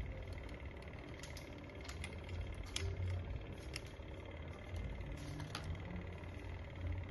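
Air fryer running with a steady low hum and a faint high whine, with a few faint clicks over it.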